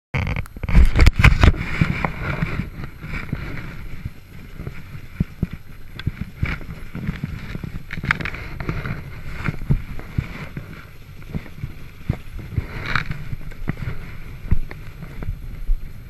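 Knocks and bumps of the camera being handled and set in place in the first two seconds, then the low, uneven rumble of a 1979 Ski-Doo Blizzard 5500's two-stroke engine idling, with scattered small clicks.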